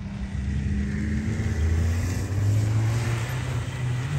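Snowmobile engine running, its revs rising through the middle and then holding steady as it gets louder.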